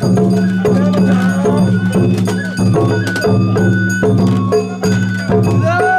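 Sawara-bayashi festival music played by a float's shitazaren ensemble: repeated drum and hand-gong strikes with held and sliding melody notes, over a steady low hum.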